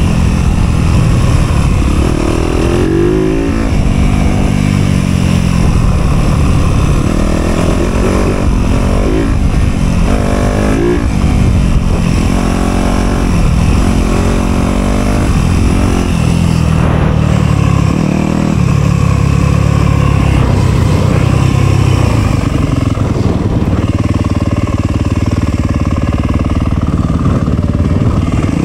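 Dirt bike engine revving up and down over and over, rising and falling in pitch every second or so as the throttle is worked. In the second half it runs at a steadier, lower pitch.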